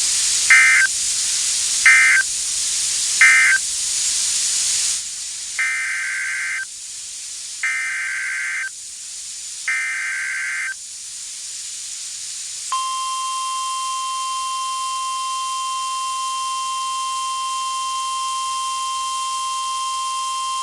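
NOAA Weather Radio Emergency Alert System signalling. First come three short warbling SAME data bursts that end the previous message, over radio hiss. Then three longer data bursts of about a second each, the header of the next alert. About 13 seconds in, the steady 1050 Hz warning alarm tone starts and holds.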